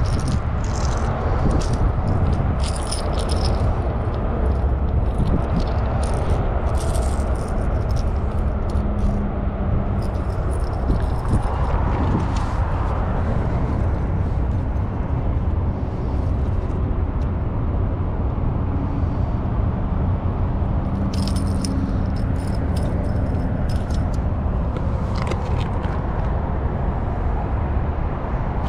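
Clicks, rattles and scrapes from handling fishing tackle and gear, in scattered clusters over a steady low rumble.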